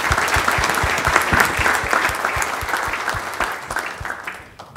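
Audience and panel applauding, a dense clapping that thins out and dies away near the end.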